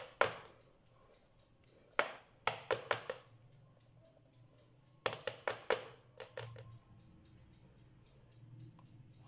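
Metal baking tray of cake batter knocked against the counter in quick runs of knocks, a single one and then two runs of four or five, to shake the air bubbles out of the batter.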